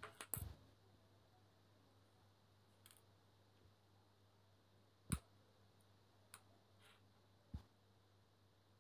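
Near silence, broken by a few faint clicks and taps, the sharpest about five seconds in. They come from a smartwatch and the bare wire ends of a cut USB cable being handled against the watch's charging pins.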